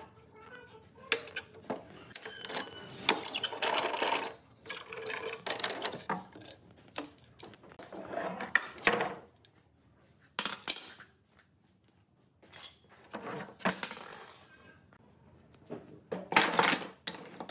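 Steel pipe clamps clinking and rattling as they are handled and slid along their pipes, with knocks of pine boards on the workbench. Near the end comes the loudest clatter, as a stack of small wooden blocks is set down on the panel.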